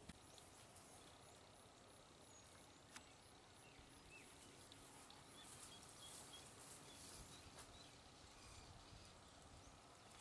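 Near silence: faint rural outdoor ambience with distant birds chirping in short runs of quick, evenly repeated high notes.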